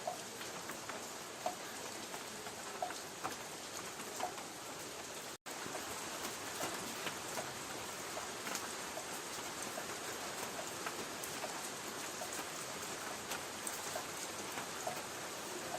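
Light rain on a tin roof: a steady hiss with single drops ticking on the metal about every second. The sound cuts out for an instant about five seconds in.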